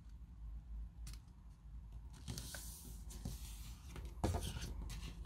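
Sheet of paper being folded and creased by hand: faint rustling and rubbing with a few light clicks, a little louder near the end.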